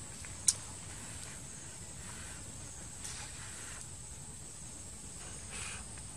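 Outdoor ambience with a steady high-pitched insect drone, such as crickets or cicadas. There is one sharp click about half a second in and a few faint rustles.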